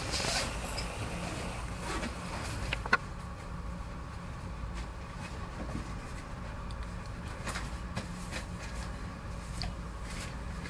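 Camera handling noise: soft rubs and small clicks, with one sharper knock about three seconds in, over a low steady hum.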